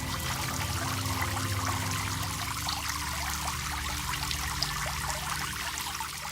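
Water running steadily, a continuous pouring trickle with many small splashes and bubbles.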